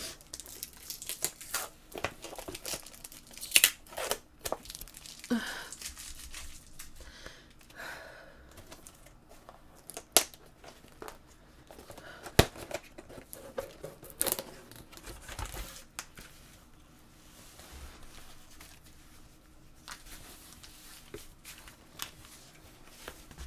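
Box packaging being opened by hand: irregular tearing, crinkling and crumpling, with sharp clicks and taps scattered throughout.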